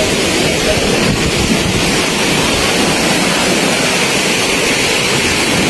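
Steady rushing noise of strong storm wind and rough, still-high waves, with wind hitting the microphone.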